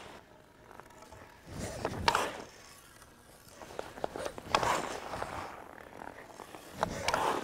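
Hockey skate blades scraping and carving the ice in three swells, as the skater crosses over and stops. Sharp clicks come from a stick handling a puck.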